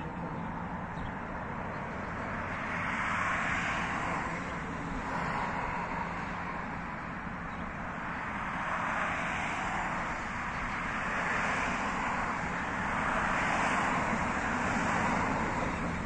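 Road traffic passing on the road alongside: several vehicles in turn, each swelling and fading as it goes by over a steady hum.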